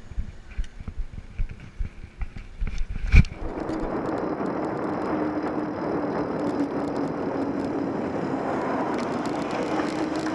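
Wind buffeting a bike-mounted camera microphone in low, uneven thumps, then a sharp click about three seconds in, after which a steady rush of wind and road noise with a faint low hum runs on.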